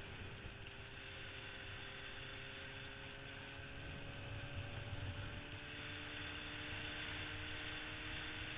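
Yamaha RD400's two-stroke twin engine running under way, with wind rumble on the microphone; the engine note climbs slowly in the second half.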